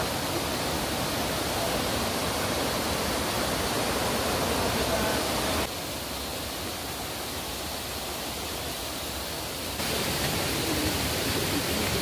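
Steady rush of water from a rocky stream, an even hiss with no separate events. It drops quieter for about four seconds in the middle, then comes back to its earlier level.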